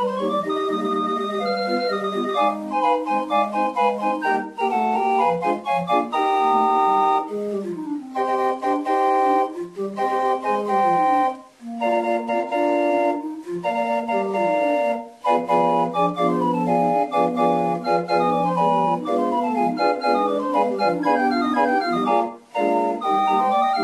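Organ music: a melody played over held chords, broken by a few brief gaps.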